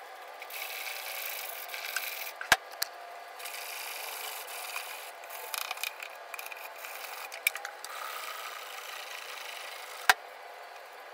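Hand sanding of a stained wooden cabinet top with sandpaper on a sanding block, a dry rasping hiss in uneven strokes, to take off gel stain that went on blotchy. Two sharp taps, one about two and a half seconds in and one near the end.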